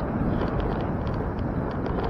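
Steady wind and road rush on a bicycle-mounted camera's microphone while riding, with small, irregular clicks and rattles over it.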